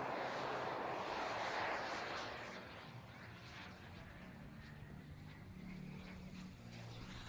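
Rushing noise of a large model turbine glider flying overhead, fading over the first few seconds as it moves away. A faint steady low hum remains under it.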